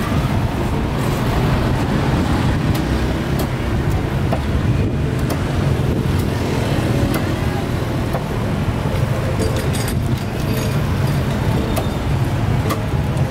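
Steady low rumble of street traffic, with scattered light clicks over it.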